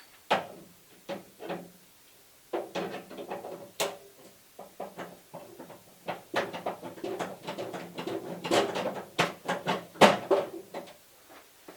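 Irregular clanks and knocks of metal being handled and worked at the steel drawers of a tool cart, thickest in the middle and fading out near the end.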